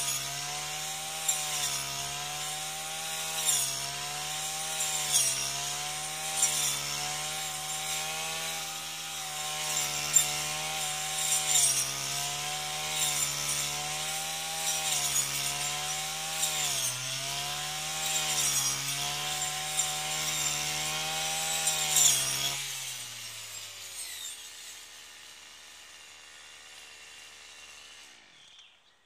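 Engine brush cutter cutting weeds: the small engine's pitch dips and recovers about every second and a half as the blade sweeps through the grass, with rasping strikes from the cutting head. About 22 seconds in the engine drops back and the sound fades away.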